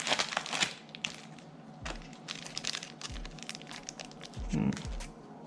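Packaging being handled: crinkling for about the first second, then scattered light clicks and taps as items are pulled out and set down.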